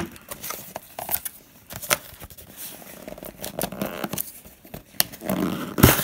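Small cardboard mailer box being handled and pulled open: scattered scrapes, taps and rustles, with the loudest sharp rip as the flap comes open near the end.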